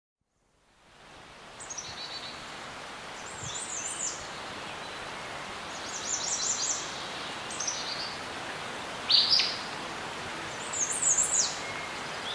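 Nature ambience fading in: a steady even hiss with songbirds chirping and calling in about six short high bursts, the sharpest call about nine seconds in.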